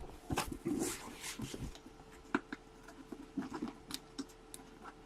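Faint, scattered clicks and rustles of trading cards and their packaging being handled.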